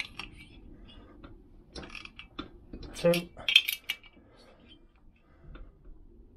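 Scattered metallic clicks and clinks of a wrench and socket on the cylinder head nuts of a Vespa PX two-stroke engine, as the nuts are nipped up a further eighth of a turn each. The clinks come in small clusters about two seconds in and again around three to four seconds in.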